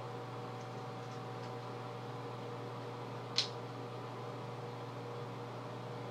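Steady machine hum and hiss of a small room, with one short, sharp click a little past halfway through.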